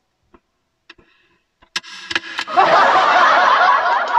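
A few sharp clicks of a hand handling the phone, then loud laughter breaks out about two and a half seconds in.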